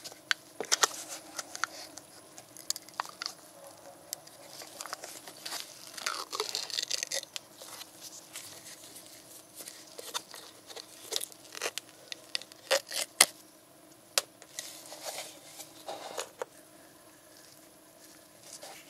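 Foil seal being peeled and torn off the neck of a plastic motor-oil bottle, with foil crinkling and a scatter of sharp clicks and taps from the bottle and cap being handled.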